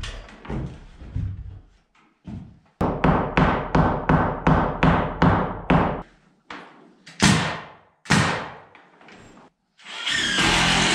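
Hammer blows on wooden stud framing: a quick, even run of about a dozen sharp strikes, roughly three a second, then two heavier knocks. Near the end a power tool starts running.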